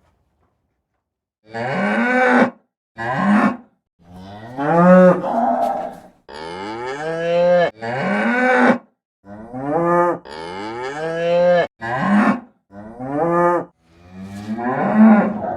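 Cattle mooing: about ten separate moos in quick succession with short gaps, some rising in pitch, after a second and a half of silence.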